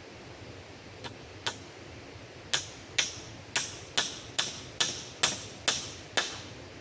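A run of about nine sharp knocks, roughly two a second, after two fainter ones, over a steady hiss of rain and river water.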